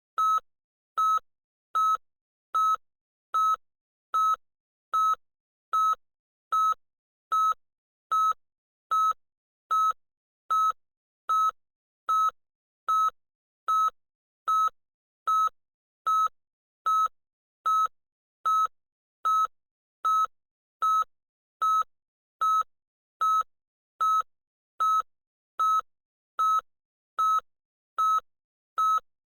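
Electronic beeper sounding a short, high single-tone beep over and over at an even pace, about one beep every 0.8 seconds, with silence between beeps.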